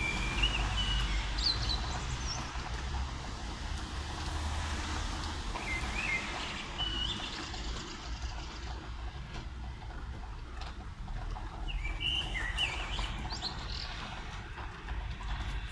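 Steady rain falling, with a small bird chirping in short bursts several times over it and a low rumble underneath. The hiss of the rain thins in its highest part about halfway through.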